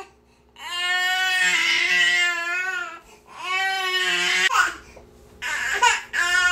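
Baby crying: two long wails, each rising and then falling in pitch, followed near the end by shorter, broken cries.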